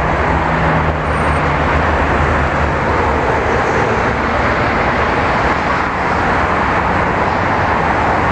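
Steady road traffic noise, a continuous rush of passing vehicles, with a low engine hum in the first few seconds.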